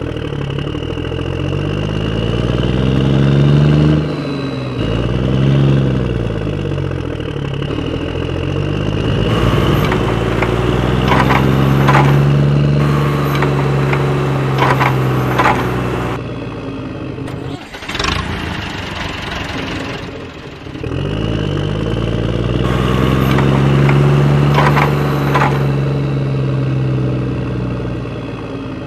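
Vehicle engine revving up and down over and over, its pitch rising and falling in repeated swells, with clicking and rattling partway through and a short lull in the middle.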